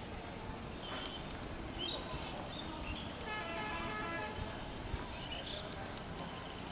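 A vehicle horn sounds once, a steady tone lasting about a second and a half, a little past the middle, over continuous street noise.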